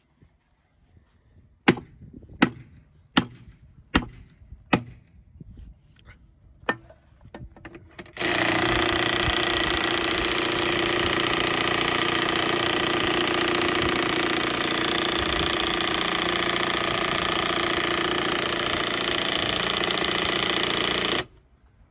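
Five sharp taps, a hammer tapping the bead breaker's claw down onto the tractor tire's bead. About eight seconds in, a power tool, an impact wrench, starts suddenly and runs steadily for some thirteen seconds while it tightens the bead breaker down, then cuts off abruptly.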